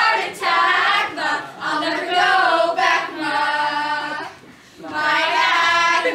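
A group of young voices singing together without accompaniment, breaking off briefly about four and a half seconds in, then coming back on a long held note.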